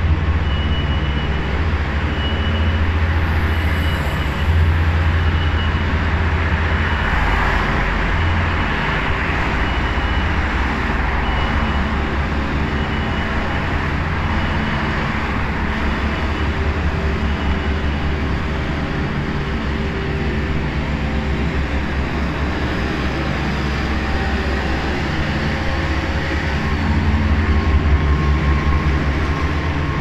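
City street ambience: a steady low rumble of traffic and urban hum, swelling as a vehicle passes about seven seconds in.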